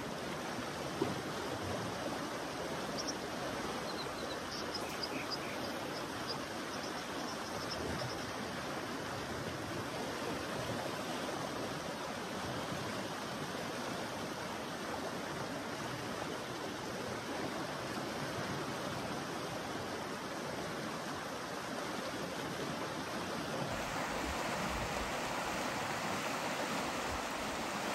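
Fast-flowing river water rushing steadily. A short run of high, thin chirps sounds a few seconds in, and about four seconds before the end the rush turns a little louder and fuller.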